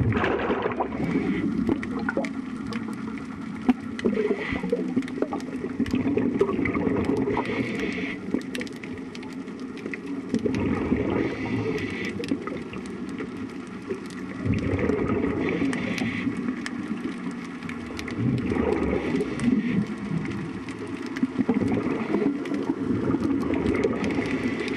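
Water sloshing and gurgling against a boat's hull, swelling and easing every few seconds, with scattered small knocks and clicks.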